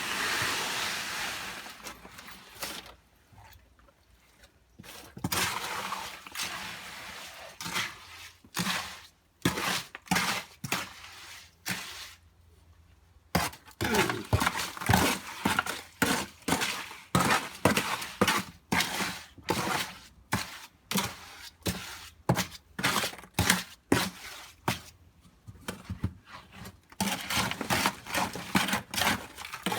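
Fresh concrete mix being tipped out and worked by hand: a gritty rush of the pour, then a long run of quick, repeated scraping strikes into the stony mix.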